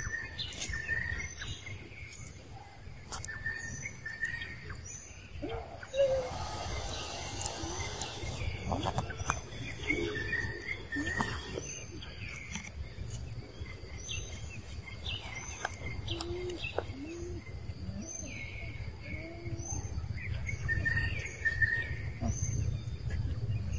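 Birds chirping, short high calls repeating every second or so, over a steady low rumble. A brief burst of noise comes about six seconds in.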